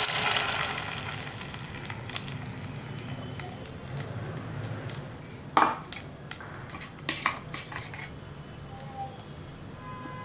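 Ground masala paste sizzling in hot oil in a steel pan, loudest just as it goes in and settling into a steady crackling fry. A couple of sharp knocks against the pan come about halfway through.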